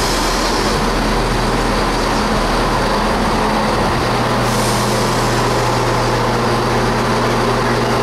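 Southern Class 171 Turbostar diesel multiple unit pulling in along the platform, its underfloor diesel engines running with a steady low drone. A high hiss joins in about halfway through.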